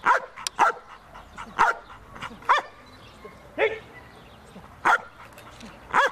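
A Belgian Malinois barking: about seven short, sharp barks, each dropping in pitch, roughly a second apart.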